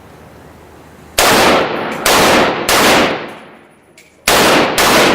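AK rifle fired in semi-automatic, single shots one at a time: three shots about a second in, a short pause, then two more near the end, each with a ringing echo.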